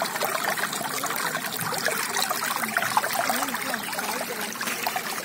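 Water running fast along a narrow earthen channel: a steady rush with small gurgles.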